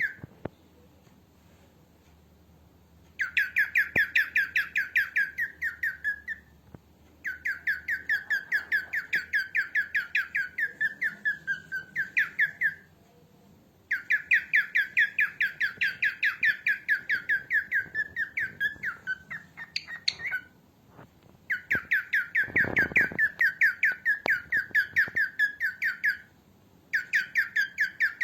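Female cockatiel calling in rapid runs of short, squawky chirps, several a second, in bouts of a few seconds with short pauses between them.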